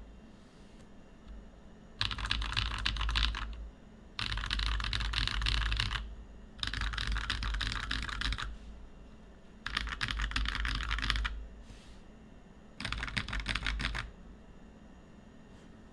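Typing on a plateless Discipline V2 65% custom mechanical keyboard with lubed NovelKeys Blueberry tactile switches. The typing comes in five quick runs of keystrokes with short pauses between, and stops about two seconds before the end.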